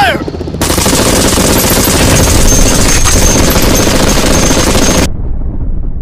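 Rapid automatic gunfire: a continuous burst of machine-gun shots that starts about half a second in and cuts off suddenly about five seconds in, leaving a low rumble.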